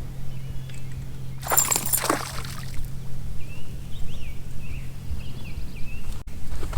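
A short splash of water about a second and a half in, over a steady low hum, with faint high chirps a little later.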